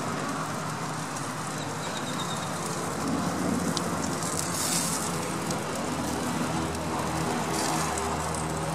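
Steak pieces sizzling on a gas grill's grate, a steady crackling hiss, with an occasional light click of metal tongs.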